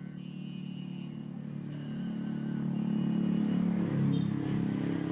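A motor vehicle's engine drawing closer, growing steadily louder and loudest about four seconds in.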